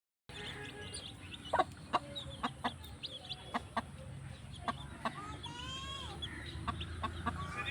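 Chickens clucking in short sharp calls, with one longer drawn-out call about five and a half seconds in, over a steady low hum.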